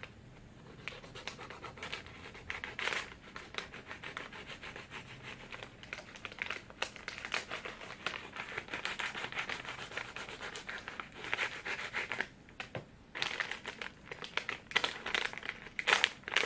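A snack packet's wrapper crinkling and crackling as a knife scrapes and saws at it. The crackling grows louder in bursts near the end as the wrapper is pulled apart by hand.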